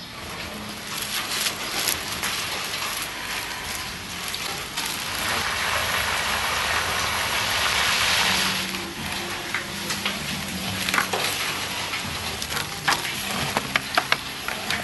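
Cooking noise: a hiss that swells to its loudest past the middle and then eases, with a run of sharp clicks and knocks near the end.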